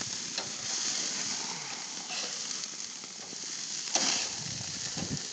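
Hamburger patties sizzling on a barbecue grill, a steady hiss, with a sharp click about four seconds in.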